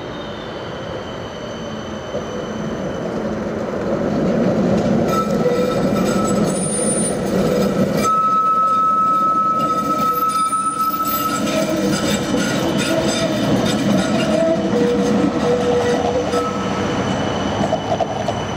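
Transtech Artic low-floor tram running past on curved track, its wheels squealing in thin, high, steady tones over the rumble of its running, with the squeal loudest about eight to eleven seconds in. The whole sound grows louder about four seconds in.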